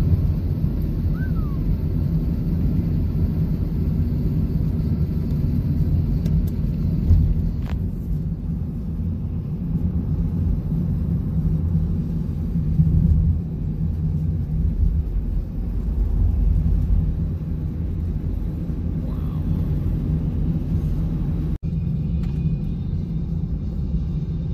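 Steady low road and engine rumble inside a car's cabin as it drives along a highway, with a brief dropout near the end.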